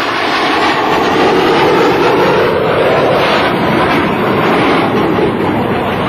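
Loud, steady jet noise from a US Navy Blue Angels F/A-18 Hornet's twin turbofan engines as the jet flies past.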